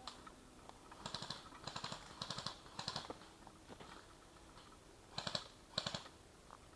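Footsteps crunching on the forest floor, each step a short crackle: four steps at a walking pace, a pause, then two more.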